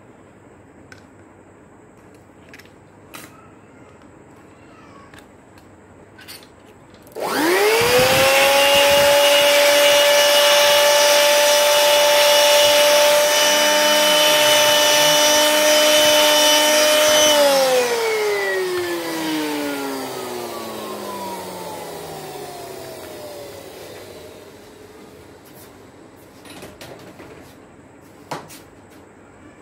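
Handheld electric blower switched on about seven seconds in: its motor whine climbs quickly to a steady pitch and runs for about ten seconds, then it is switched off and the whine falls slowly as the motor winds down. A few small clicks and knocks come before and after.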